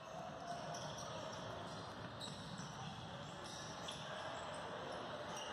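A basketball bouncing on an indoor court during a game, over a steady background murmur of voices in the gym.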